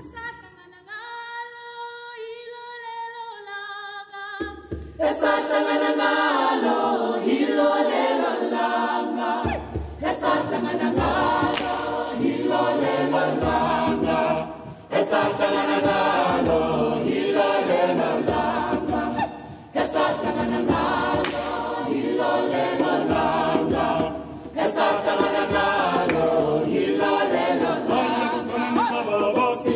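Mixed-voice choir singing. A few voices hold quiet sustained notes at first, then the full choir comes in loudly about five seconds in, with the low voices joining a few seconds later.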